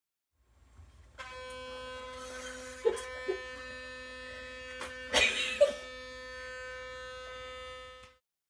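Electric sonic toothbrush running with a steady buzz, switched on about a second in and off just before the end, with a few short louder noises over it about three and five seconds in.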